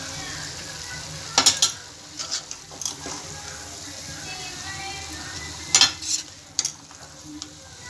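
A spatula scraping and knocking against a metal pan as raw chicken pieces with turmeric are stirred, in two bursts of strokes about a second and a half in and again about six seconds in. A soft sizzle of the chicken frying in oil runs underneath.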